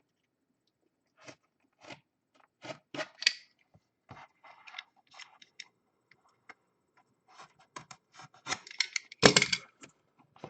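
Packaging being handled and torn open by hand: irregular crinkling, scraping and tearing clicks, with a louder crunchy burst near the end.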